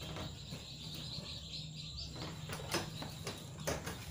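Wooden drawers of a homemade egg incubator being shut and handled, giving a few light knocks, over a steady low hum. Faint chick chirping in the background.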